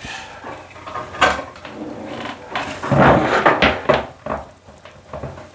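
Handling noise of stiff electrical wires being twisted together by hand at a wall junction box, with clicks, taps and scrapes against the light fixture's mounting bracket. There is a sharp tap about a second in, and a busier, louder cluster around three to four seconds in.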